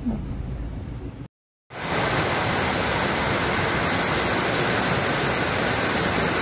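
Floodwater rushing as a torrent through a yard and street, a loud, steady rush of water. Before it, a brief low rumble from inside a moving car cuts off about a second in.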